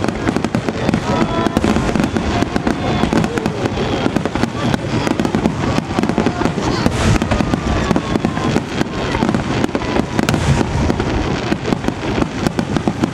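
Aerial firework shells bursting in rapid, overlapping succession: a dense, unbroken run of loud bangs and crackles from a fireworks barrage.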